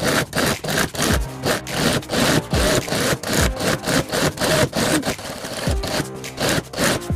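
Sewing machine stitching in quick stop-start runs, a few strokes a second, as wire piping is sewn around the curved corner of a bag panel. Background music with a low beat plays underneath.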